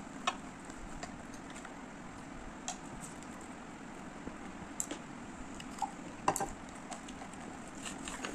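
Eating sounds at a table: scattered light clicks and taps of fingers and food on divided plates as rice and curry are mixed and eaten by hand, over a steady low hum. The sharpest click comes about six seconds in.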